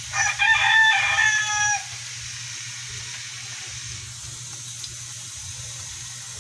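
A rooster crowing once, about a second and a half long, shortly after the start. Under it, a steady low hum and a faint hiss continue.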